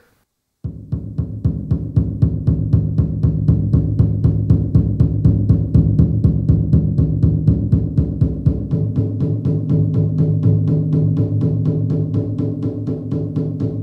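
Roland TAIKO-1 electronic taiko drum played as a fast, even roll of single-stick strokes on the head. The drum tone shifts partway through as the strikes move between the center of the head and the rim.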